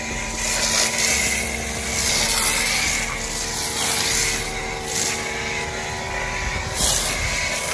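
Greenworks Pro electric pressure washer running, its motor humming steadily while the spray hisses, swelling and fading as a foam cannon sprays snow foam onto a car.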